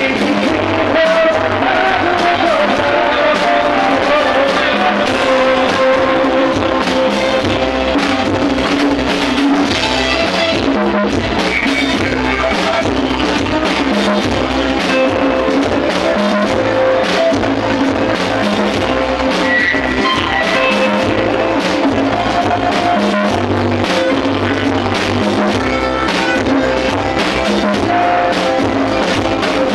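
Live band music played loud and steady on stage: electric guitar, bass guitar, keyboard and congas with a regular beat.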